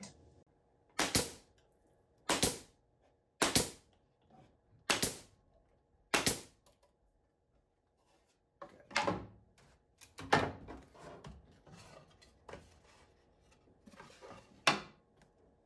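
Pneumatic brad nailer driving nails into a glued plywood joint: five sharp shots about a second and a half apart, then, after a short pause, a few more shots among knocks of wood being handled.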